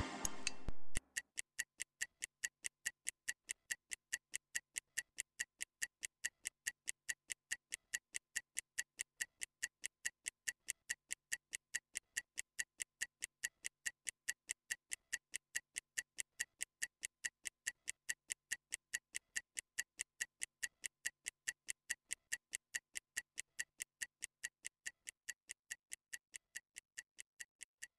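Stopwatch ticking sound effect, a steady tick about twice a second counting down a rest period. It takes over as background music ends about a second in.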